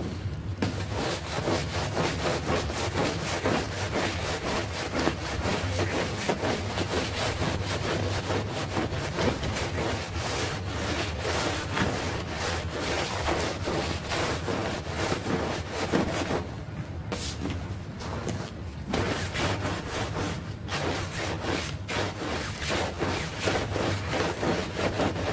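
Stiff push-broom bristles scrubbing a wet, soapy rug in quick back-and-forth strokes, a rough scratchy swishing that stops briefly a couple of times past the middle. A low steady hum runs underneath.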